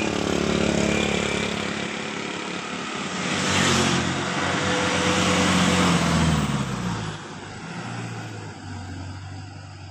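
A bus driving past close by. Engine and tyre noise build to a peak around four seconds in, then the engine note drops in pitch and fades as it goes away.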